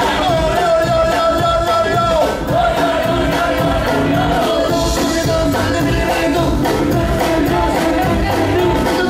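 Live band music with singing over a steady drum beat, guitar and keyboard; a long held note sounds for the first two seconds or so.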